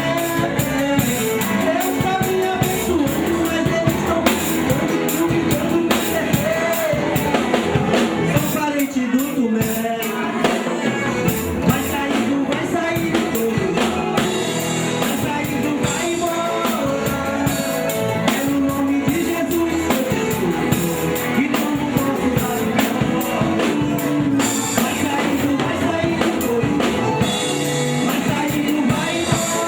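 Live gospel band music: a drum kit keeping a steady beat under electric guitar, bass and keyboard, with singing.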